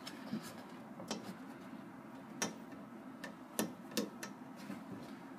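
Several sharp, irregular clicks and taps as fingers work a rubber O-ring loose from around the quartz sleeve at the end of a stainless-steel UV disinfection chamber, the loudest in the second half.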